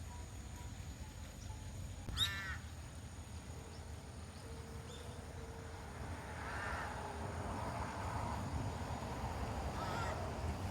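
A crow cawing three times: one loud caw about two seconds in, then fainter caws midway and near the end, over a steady low rumble.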